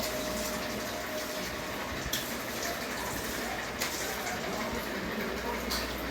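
Ceiling fan running, a steady whooshing noise, with three faint ticks spaced about two seconds apart.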